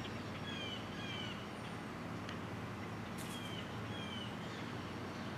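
A bird calling with short, slightly falling chirps, two pairs about three seconds apart, with fainter high chirps between, over a steady low outdoor hum.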